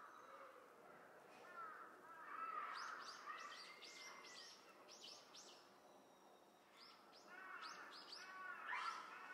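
Faint series of short chirping animal calls, in two bouts with a pause between them.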